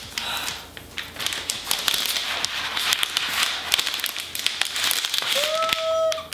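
A protective wrap being peeled and pulled off a laptop, crackling and rustling with many small sharp clicks.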